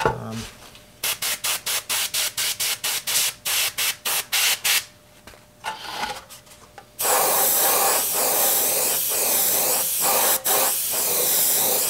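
Airbrush spraying paint: first a rapid run of short bursts, about four a second, then from about seven seconds in a continuous spray hiss broken briefly a couple of times.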